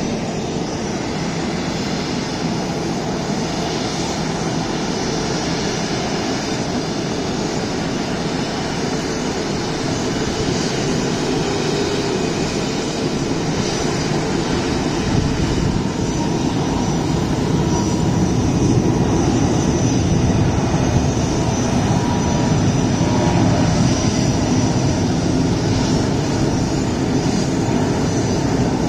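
Jet airliner engines running: a steady, dense roar that grows louder and deeper from about halfway through, as the aircraft nears or powers up.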